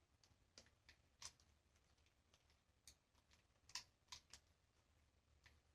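Faint, irregular small metallic clicks, about seven over a few seconds, of cartridges being handled and pressed into a magazine.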